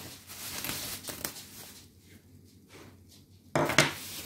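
Rustling handling noise for the first second and a half or so, then quieter, with a short, louder rustle or scrape near the end.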